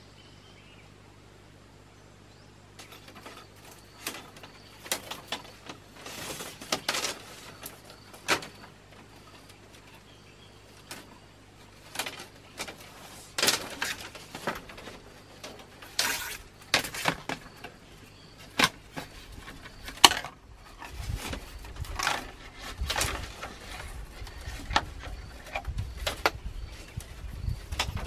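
Thin bamboo strips being woven by hand into a round bamboo hen coop: irregular rustling, scraping and sharp clicks as the strips are bent and threaded through one another. The first few seconds hold only a faint steady hum, and a low rumble joins in near the end.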